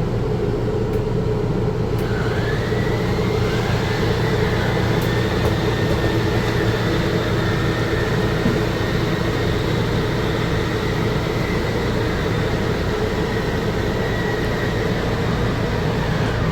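Electric slide-out motors of an RV running as two slide rooms extend: a whine that rises in pitch as one motor starts about two seconds in, joined by a second about a second later, then holds steady over a constant low hum.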